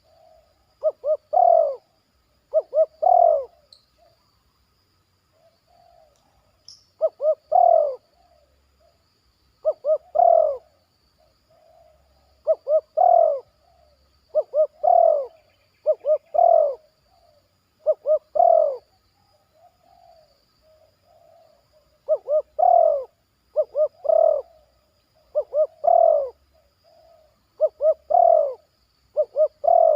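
Spotted dove cooing over and over in short phrases of two or three hoarse notes, a phrase every second or two, pausing for a few seconds twice. Softer coos come between the loud phrases.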